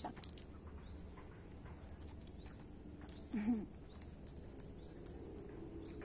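Outdoor nature ambience: an unseen animal repeats a short rising chirp about every three-quarters of a second over a faint, steady high hiss. A brief low voice-like murmur comes about halfway through.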